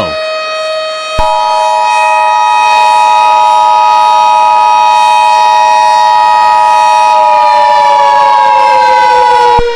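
Emergency Alert System two-tone attention signal (853 and 960 Hz together) sounding steadily for about eight seconds, starting about a second in and cutting off just before the end. Under it a civil defense siren wails at a steady pitch, then starts to wind down in pitch about seven seconds in.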